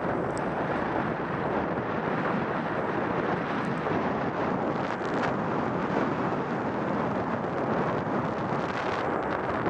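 Wind buffeting the microphone of a camera moving fast downhill on skis, a steady rushing noise.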